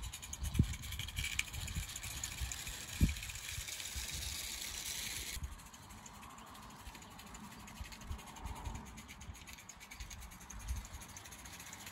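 Steady hiss of a small live-steam garden-railway locomotive running, with wind buffeting the microphone in low thumps. The hiss cuts off abruptly about five seconds in, leaving a quieter low wind rumble.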